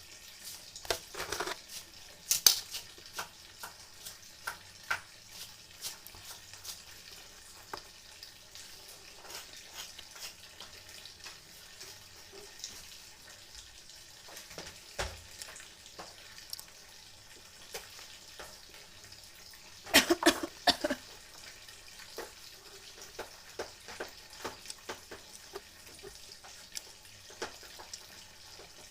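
Eating noises: many small, sharp clicks and clinks at an uneven pace. Louder clusters come about one to two seconds in and again around twenty seconds in.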